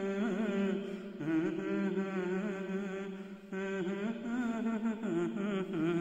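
A man's voice singing a slow Malayalam song melody without clear words, long wavering held notes, with a short break about three and a half seconds in. The echo of a large, bare hall rings behind it.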